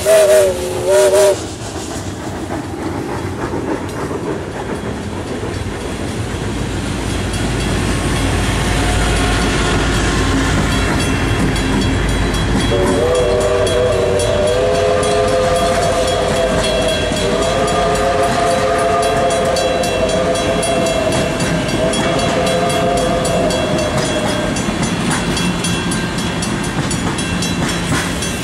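A QJ 2-10-2 steam locomotive's chime whistle cuts off about a second in, then the train of passenger cars rolls past over the crossing with steady rail clatter. About 13 seconds in the whistle sounds again in one long blast of about eleven seconds, farther off down the line.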